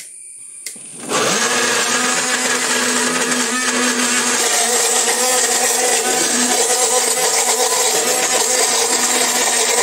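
Atomberg MG1 BLDC mixer grinder switched on about a second in and running steadily at speed, grinding jackfruit in its jar. There are a couple of light clicks just before it starts.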